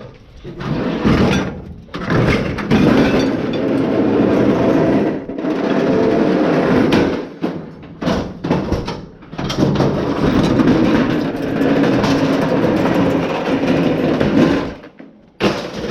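Heavy metal item being dragged across hard ground, grating and scraping in three long pushes with short pauses and a few knocks between them.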